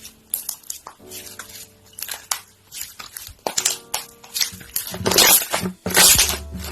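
Slime being squeezed and pressed by hand, giving a quick run of crackling, squishy pops that grow louder and denser in the last couple of seconds.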